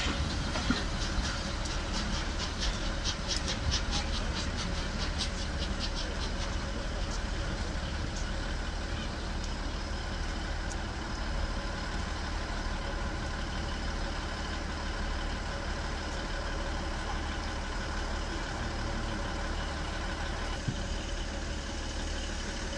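Train behind Merchant Navy class steam locomotive 35018 pulling away. For the first several seconds its wheels click rapidly over rail joints, about three a second, and the clicks fade as it draws off into a steady low rumble.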